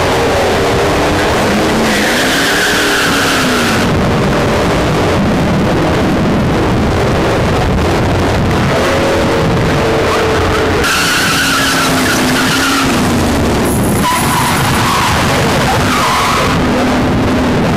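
Drag cars launching and accelerating hard down the strip, engine pitch rising and falling, with tire squeal. Near the end the supercharged Pontiac Grand Prix GTP does a burnout, its tires squealing as they spin.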